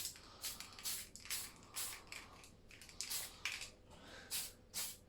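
Aerosol spray can of surface primer hissing in short bursts, about two a second, as a light coat is sprayed on.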